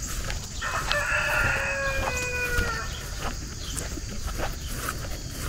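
A rooster crowing once: a single call of about two seconds starting about a second in, dropping slightly in pitch at the end, over steady low background noise.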